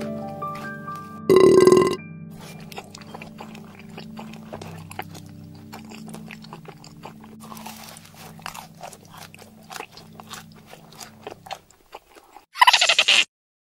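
Cartoon eating sound effects over light background music: a loud chomp about a second in, then a long run of crunchy chewing clicks as a cheeseburger is eaten. The music stops and a loud burp comes near the end.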